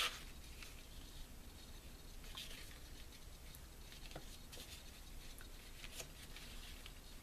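Faint rustling of a paper treat bag and lace ribbon being handled as the ribbon is wrapped around the bag and tied, with a few soft scattered taps.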